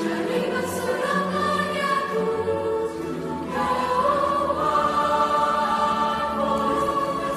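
Mixed youth choir singing in parts, holding sustained chords that move to a new, brighter chord about halfway through.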